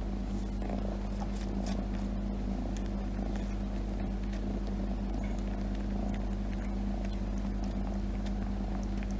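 Cat purring: a steady, unbroken low rumble, with a few faint soft clicks over it.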